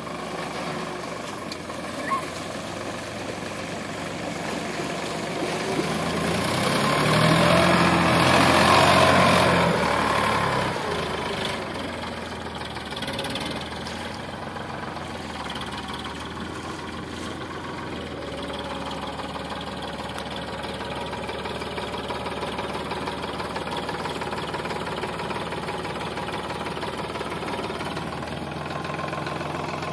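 Sonalika DI 745 III tractor's diesel engine running steadily. It swells louder for a few seconds about a quarter of the way in, then settles back to an even level.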